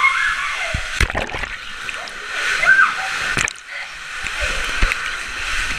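Water sloshing and splashing inside an inflatable zorb ball, with a couple of sharp knocks, one about a second in and one a little past three seconds.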